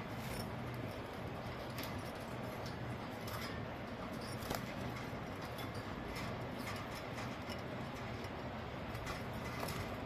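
Pet budgerigars chirping and chattering quietly, scattered short high chirps over a steady low hum.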